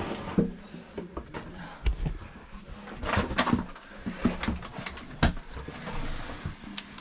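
Scuffing, scraping and knocks of someone crawling on hands and knees through a narrow stone passage, with a longer stretch of scraping about three seconds in.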